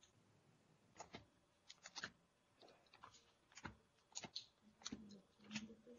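Near silence: room tone with faint, scattered clicks and ticks.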